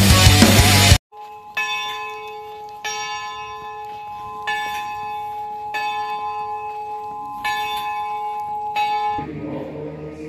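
A church bell struck six times, about one and a half seconds apart, each stroke ringing on into the next at the same pitch. Loud drum-kit music cuts off about a second in, and chanting begins near the end.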